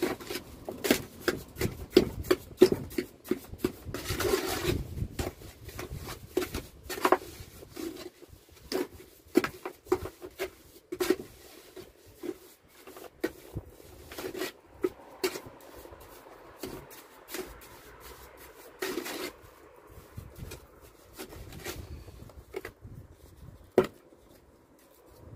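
Steel trowel scraping and knocking through mortar: a quick, dense run of short scrapes for the first several seconds, then sparser scrapes and taps, as the mortar is worked up after being wetted.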